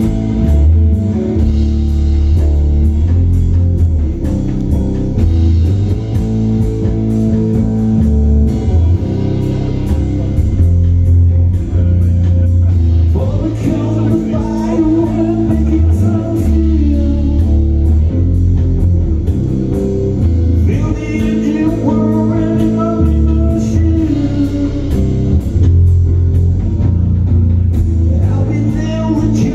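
Live blues-rock band playing loud amplified electric guitars over drums, with a heavy bass line and a steady cymbal beat. Higher melody lines that bend in pitch come in about halfway through.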